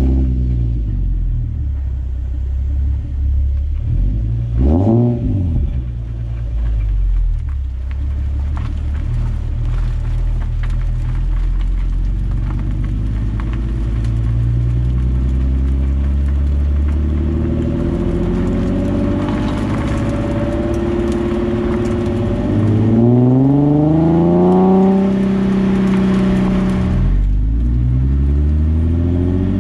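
Nissan 370Z's 3.7-litre V6 exhaust, heard at the tailpipe with the stock catalytic converters still in place, while the car drives. A quick rev rises and falls about five seconds in, then the engine cruises steadily. In the last third the note climbs under acceleration, drops at a gear change and climbs again.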